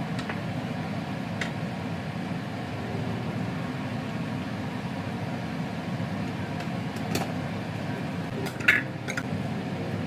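Wooden spatula knocking and scraping in an enamel pot of braising chicken feet, over a steady low hum. Near the end a glass pot lid is set down on the pot with a sharp clack.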